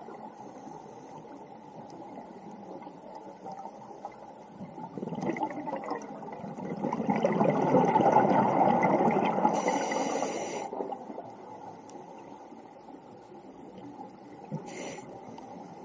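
Scuba diver's breathing heard underwater: a long bubbling rumble of exhaled bubbles that swells and fades in the middle, and short hisses of breath drawn through the regulator twice, over a steady underwater hiss.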